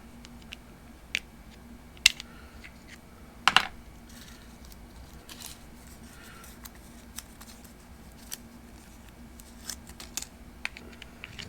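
Small sharp clicks and taps of a plastic motorcycle key fob being handled as its CR2032 coin battery is taken out and swapped, the loudest a double click about three and a half seconds in.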